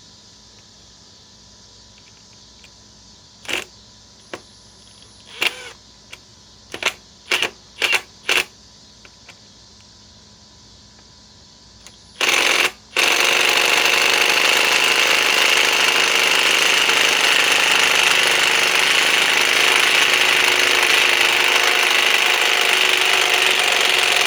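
Cordless impact driver, a DeWalt DCF860, driving a 4-inch Phillips drywall screw. First come several short, separate blips of the trigger. About halfway through it hammers loudly and without a break for about twelve seconds.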